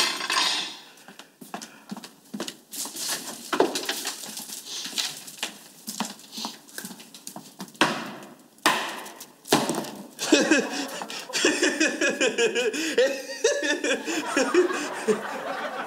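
A string of separate knocks and clatter, like kitchen work. About ten seconds in comes a stretch of laughter.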